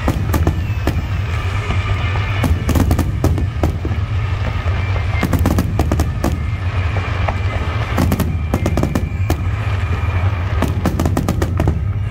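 Aerial fireworks bursting in a display: many sharp bangs and crackles, coming in several rapid clusters, over a steady low rumble, with music underneath.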